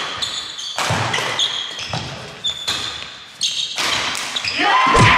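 Badminton doubles rally on an indoor court: sharp racket strikes on the shuttlecock about a second or so apart, with short high shoe squeaks on the court floor between them. Near the end comes a loud thud and a player's drawn-out shout as the rally ends.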